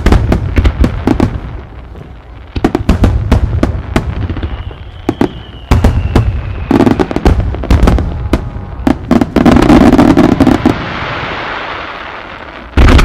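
Starmine fireworks barrage: volleys of aerial shells bursting with sharp bangs in rapid clusters. About five seconds in comes a thin falling whistle, and around ten seconds in a dense hiss fades out over about two seconds before another cluster of bangs near the end.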